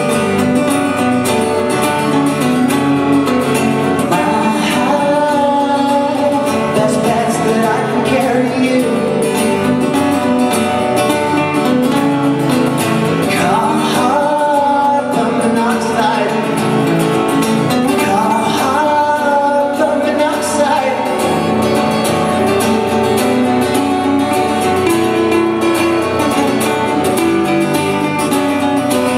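Live folk-rock song: strummed acoustic guitar with a singing voice.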